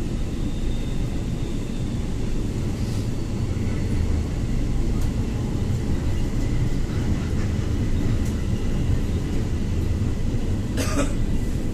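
Kolkata Metro train running, heard from inside the carriage: a steady low rumble of wheels on rail, with two brief hissing sounds near the end.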